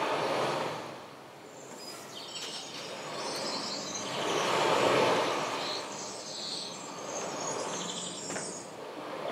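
Soft wash of ambient noise that swells and fades, with scattered high bird chirps.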